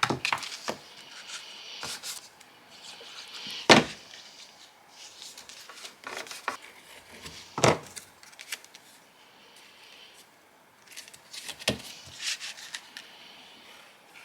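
Paper and cardstock pieces being handled and slid across a craft table, with rubbing and scraping, and four sharp knocks on the table about four seconds apart.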